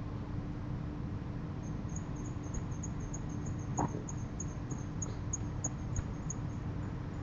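Quick, high-pitched insect chirps, about four a second, start about two seconds in and stop shortly before the end, over a steady background hiss and low hum. A brief muffled sound, the loudest moment, comes near the middle.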